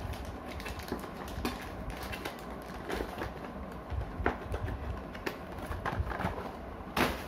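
Light, scattered clicks and rustles of small plastic Beyblade parts and packaging being handled, with a sharper click about seven seconds in, over a low background rumble.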